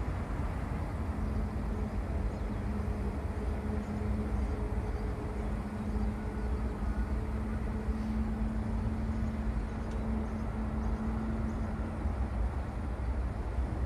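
Jet airliner engines heard from a distance: a steady low rumble with a held hum that comes in about a second in and fades away near the end.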